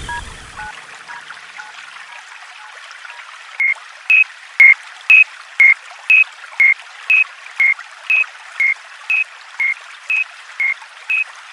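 Japanese railway level crossing warning bell (fumikiri) ringing its 'kan kan' pattern, alternating between two pitches at about two strikes a second, starting about three and a half seconds in, over a steady rushing hiss. A fainter, lower two-tone ding fades out in the first second or so.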